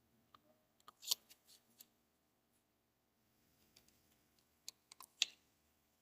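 Light clicks and taps from engine valve lifters being handled and slid up and down in their bores in the block, checked for burrs. A small cluster comes about a second in and another near the end, the sharpest tap just after five seconds.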